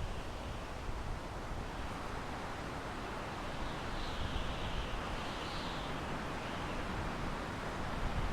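Wind blowing through pine trees, a steady rushing hiss of air in the needles, with the higher hiss swelling a little around the middle.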